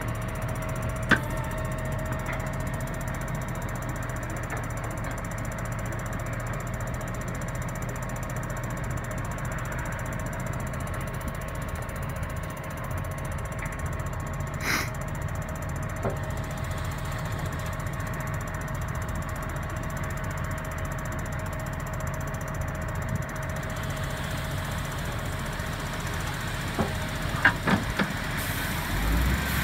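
Fendt 930 Vario tractor's six-cylinder diesel running steadily while its hydraulics raise a dump trailer body, with a steady thin whine over the engine. A few sharp knocks, and near the end a cluster of knocks and clatter as soil and rocks slide out of the tipped body.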